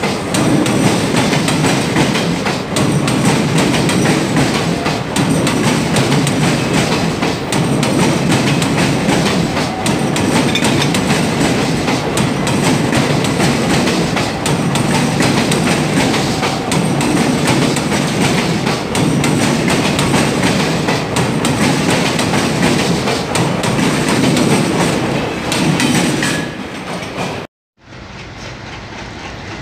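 Steel wheels of a passing Indian Railways passenger train's coaches clattering loudly over a crossover's points and crossings: a continuous clickety-clack that swells and eases every second or two. Near the end it cuts off abruptly and a quieter rumble follows.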